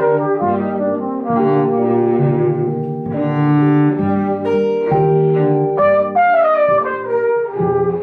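Live small-group jazz in three-four time: a brass horn plays sustained melody notes over a plucked upright double bass and cello.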